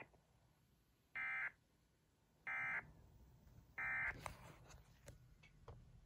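Emergency Alert System end-of-message data bursts: three short, identical buzzy squawks about a second and a quarter apart, the digital code that closes the alert. A few faint clicks follow near the end.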